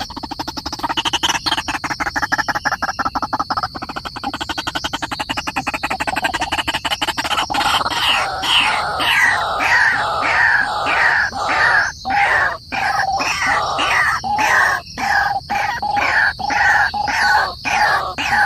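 Birds calling: a fast run of short, repeated calls that slide downward in pitch, several a second, starting about halfway through, over a steady high tone and a rapid pulsing in the first half.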